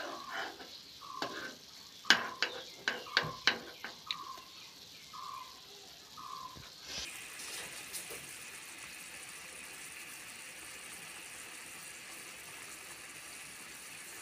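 A metal spoon clinks against a small saucepan as food is stirred in boiling water, with a run of sharp taps in the first few seconds. From about seven seconds in, the pot boils with a steady bubbling hiss. A short falling chirp repeats about once a second during the first six seconds.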